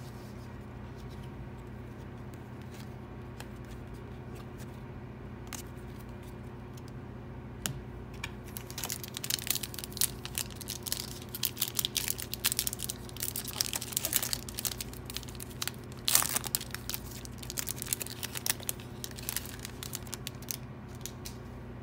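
Foil-lined wrapper of a Topps baseball card pack being crinkled and torn open by hand. After several seconds of only a steady low hum, the crackling starts about eight seconds in as a dense, uneven run, loudest about halfway through.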